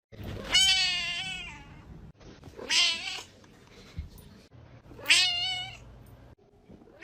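A cat meowing three times, a couple of seconds apart. The first meow is the longest.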